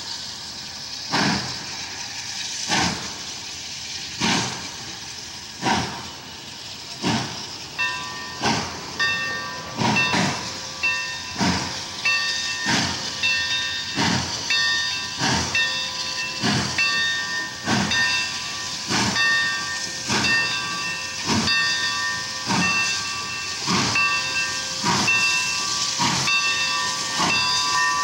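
AT&SF 3751, a 4-8-4 steam locomotive, moving slowly under steam with a constant hiss and a regular exhaust chuff about every second and a half, quickening to about one every 0.7 s some eight seconds in. From then a ringing tone of several pitches repeats over the chuffing.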